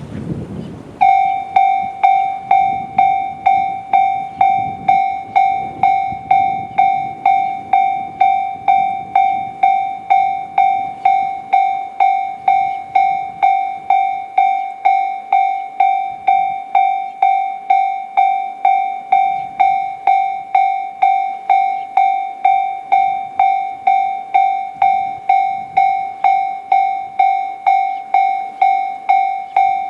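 Japanese railway level-crossing alarm sounding the JR standard electronic bell tone. It starts about a second in and dings steadily about twice a second, the warning that a train is approaching. Wind on the microphone is heard before the alarm starts.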